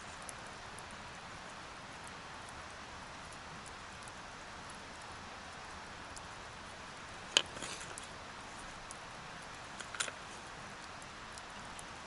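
Steady rushing of a flowing river, with one sharp click about seven seconds in and two lighter clicks near ten seconds.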